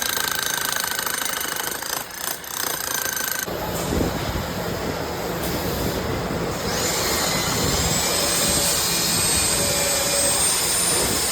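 Steady mechanical running noise, like a motor-driven machine. The sound changes abruptly about three and a half seconds in, and a thin high whine rises and holds from about seven seconds in.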